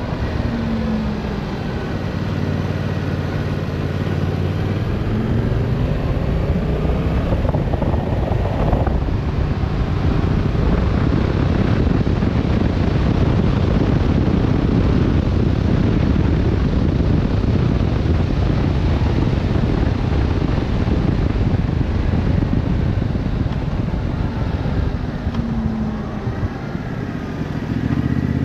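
Yamaha Tracer 7's 689 cc parallel-twin engine running on the road. Its note falls off at the start and picks up again near the end. In between, wind rushing over the microphone at speed drowns it out.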